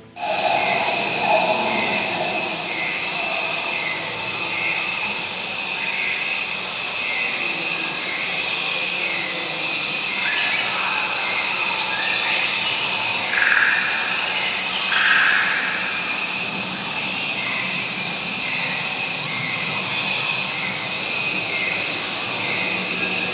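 Recorded jungle soundscape played through an art installation's smart speakers: a steady hiss of insects and frogs, with a short chirp repeating about once a second and two louder calls just past the middle.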